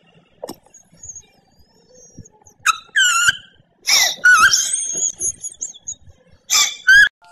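An English bulldog giving a few high, wavering howling cries, the longest near the middle.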